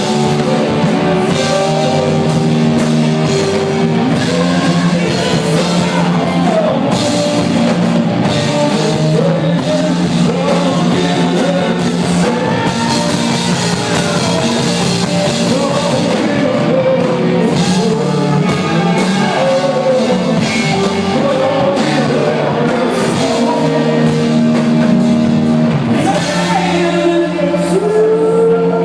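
Rock band playing live, with a singer holding and sliding long notes over guitar and a drum kit with crashing cymbals.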